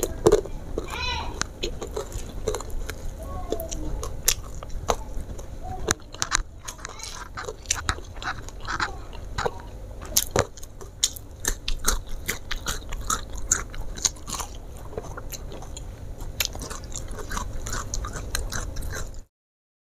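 Close-up eating sounds: a person biting and chewing mouthfuls of rice, fried chicken and raw vegetables, with many small crunches and wet clicks of the mouth. The sound cuts out completely for about a second near the end.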